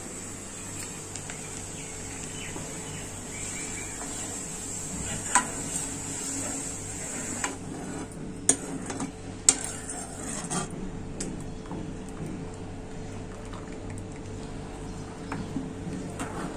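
Steel spoon stirring milk in a metal pan, with a few sharp clinks of the spoon against the pan, the loudest around the middle, over a steady background hum.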